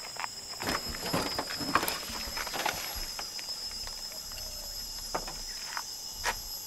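Scattered light footsteps on gravel and small knocks and rustles of things being handled in a car boot, over a steady high-pitched hum.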